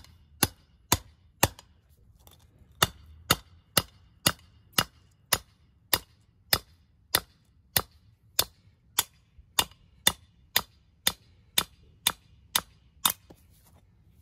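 Sledgehammer pounding the old lower ball joint out of a rusty 1992–2000 Honda Civic front spindle (steering knuckle): sharp, evenly spaced blows at about two a second, with a short pause after the first four.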